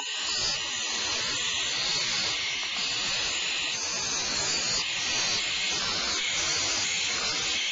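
Owl hissing: one long, continuous hiss with a few brief dips.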